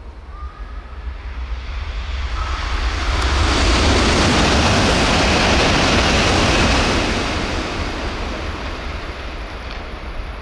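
Shinkansen bullet train passing through the station at high speed without stopping: a rushing noise over a low rumble that swells over about two seconds, holds for about three, then fades away near the end.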